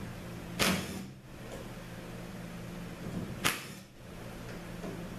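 Cordless driver working the cover screws off a 48RE automatic transmission valve body, with two short sharp clicks, one about half a second in and one about three and a half seconds in, over a low steady hum.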